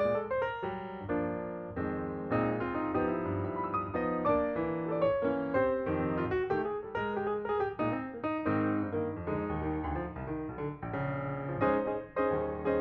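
Background piano music: a lively run of notes played continuously.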